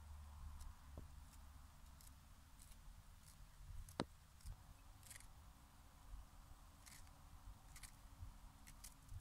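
Faint, crisp snicks of a kitchen knife cutting romaine lettuce held in the hand, coming irregularly, with one sharper click about four seconds in.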